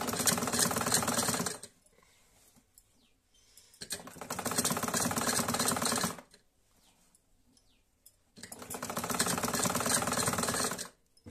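Black 'Modern' domestic sewing machine stitching in three runs of about two seconds each, a rapid, even clatter, with short pauses between.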